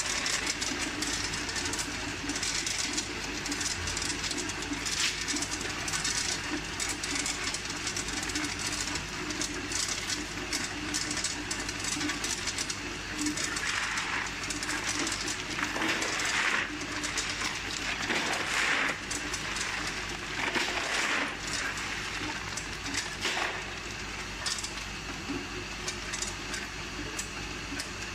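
Tube ice from a tube ice machine clattering down a stainless chute into a plastic basin: a dense rattle of many small ice cylinders that does not stop, over the machine's steady hum. A plastic scoop rakes through the pile several times in the middle, in louder swishes.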